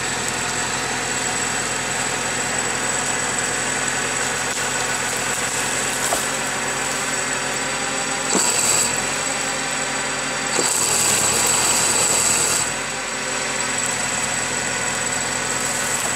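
Diesel engine of a Valtra forestry tractor running steadily while it powers the hydraulics of a Farmi 35 energy grapple felling and lowering a birch. Two louder, brighter surges come about eight seconds in and again for about two seconds from ten seconds in, as the hydraulics take load.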